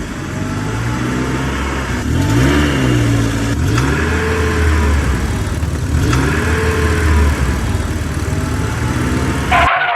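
Engine revving up and dropping back over and over, about every two seconds. It cuts off abruptly near the end.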